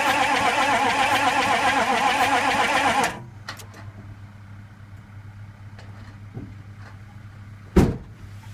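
A 6.2 L V8 diesel being cranked on its starter with a rhythmic rise and fall, turning over without ever firing: a no-start with no sign of catching. The cranking cuts off about three seconds in, then a few faint clicks and a single loud thump come near the end.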